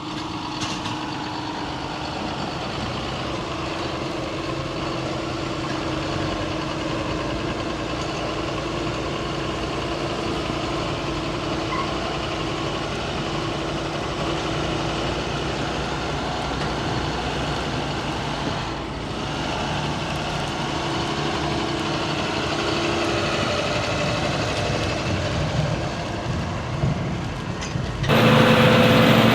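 John Deere combine harvester running steadily under a constant load, its engine and machinery making an even drone with a held tone. About a second before the end the sound changes suddenly and grows louder.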